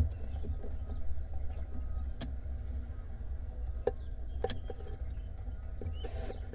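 Sounds inside a barn owl nest box: a steady low rumble with a few sharp clicks and scrapes, and near the end a short hiss from a barn owl nestling.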